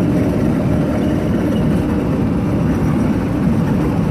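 Steady rumble of a car driving on a rough country road, engine and tyre noise heard from inside the vehicle.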